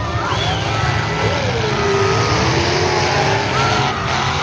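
Engines of stock pickup trucks in a demolition derby heat, running loud and steady, with shouting voices wavering over them.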